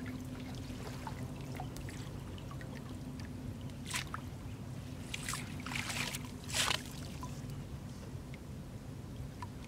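Shallow muddy water splashing and dripping as a wet cast net is lifted and gathered by hand, with a few louder splashes between about four and seven seconds in. A steady low hum runs underneath.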